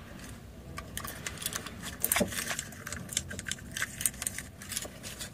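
Small metal clicks and rattles of an ignition lock cylinder being pushed and wiggled into a new ignition case to line it up, a scatter of irregular ticks with a louder click about two seconds in.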